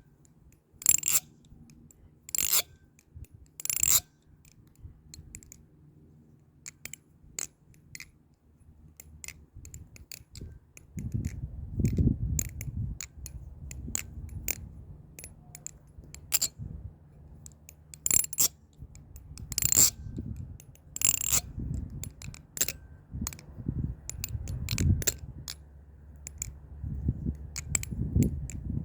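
Clone of an Armed Shark Krake Raken V3 balisong being flipped: sharp metallic clacks with a bright ring as the handles swing shut, and many lighter clicks and rattles between them. A lower rubbing handling noise joins from about a third of the way in.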